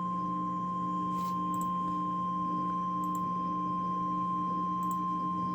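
NOAA Weather Radio 1050 Hz warning alarm tone: a single steady, pure tone held without a break over a faint low hum. It is the signal that a warning message follows, here a severe thunderstorm warning.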